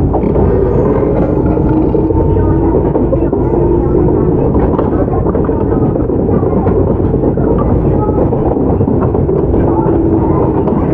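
Shizuoka Railway 1000 series resistance-controlled electric train running, heard from inside the car: a steady rumble of wheels on rail with a faint humming tone from the running gear.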